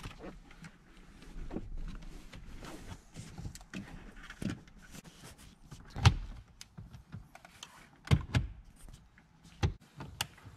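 Plastic dashboard trim of a Nissan Titan being pried loose with plastic trim tools: scattered clicks, creaks and knocks as the panel flexes and its clips give. The sharpest snap comes about six seconds in, with a few more knocks around eight and nearly ten seconds in.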